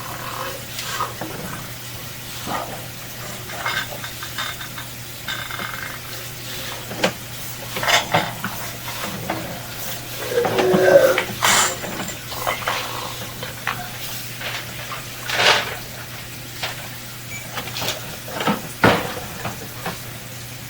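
Scattered clinks, knocks and rattles from sewer inspection camera gear at work in a drain line, over a steady low electrical hum. A louder burst of clatter comes about halfway through.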